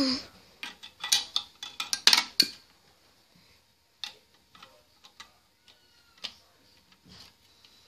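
Marbles clicking and clattering along a plastic marble run: a quick run of clicks in the first couple of seconds, then scattered single clicks.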